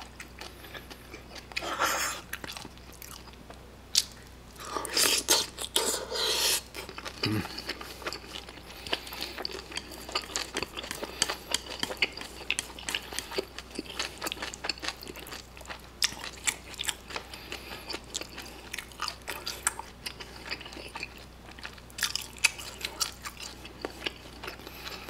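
Close-miked chewing and biting of kimpitang, battered fried pork under sticky kimchi sauce and melted mozzarella, with many small wet mouth clicks. A couple of longer noisy slurps come in the first seven seconds as long cheesy strands are drawn in.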